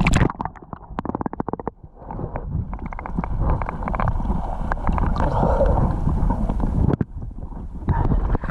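Wind buffeting the microphone over water sloshing, with a fast run of clicks from about half a second to nearly two seconds in.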